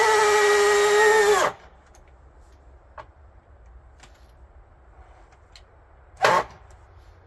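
Electric drill driving a long structural wood screw into a timber beam: a loud, steady motor whine that sags a little in pitch as the screw draws tight, then cuts off about a second and a half in. Afterwards a few light clicks and one sharp knock about six seconds in.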